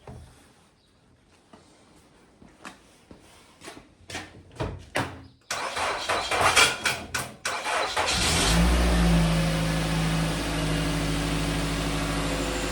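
A few light clicks and knocks, then the 2019 Nissan Rogue's engine cranks for a couple of seconds on a jump start and catches, settling into a steady idle. It starts on the jump because its own battery is dead.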